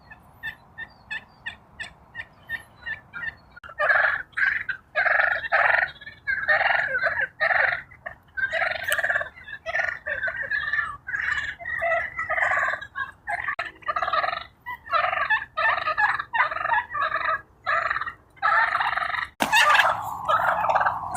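A flock of wild turkeys calling. Faint, short calls come about three a second for the first few seconds. From about four seconds in, many toms gobble loudly over one another.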